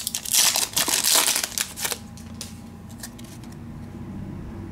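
Trading card pack wrapper crinkling and cards being handled for about two seconds, then the crinkling stops and a faint, steady low hum is left.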